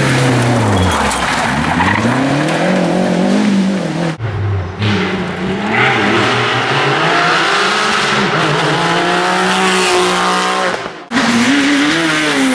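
Rally cars at full stage pace, with the engines revving hard and the pitch falling and rising through gear changes and lifts. Three passes are cut together: a Renault 5, a Porsche 911, then a Peugeot 206.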